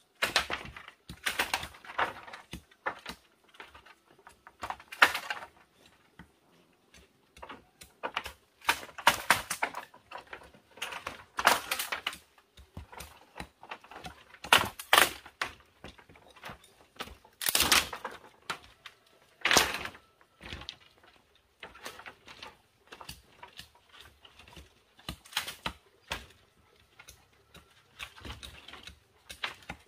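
Split bamboo strips clattering and knocking against each other and the ground as they are picked up, lifted and laid down. The knocks are sharp and irregular, some in quick runs of clacks.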